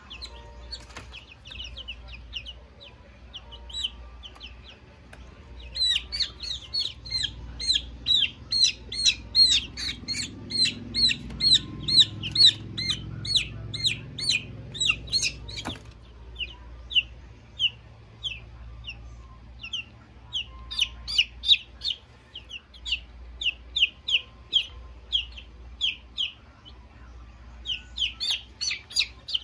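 Newly hatched chicks peeping: a long run of loud, high, falling peeps at about three a second, then softer runs, the insistent calling of chicks held in the hand and given eye drops.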